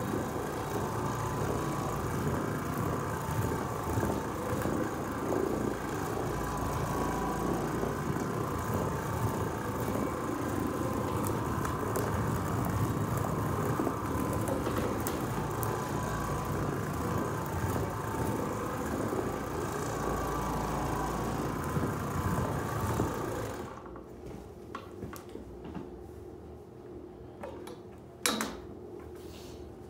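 Oreck Orbiter orbital floor machine with a blue microfiber pad, running steadily as it scrubs ice-melt salt out of carpeted stair treads in low-moisture cleaning. It shuts off about four-fifths of the way through, followed by a few light knocks.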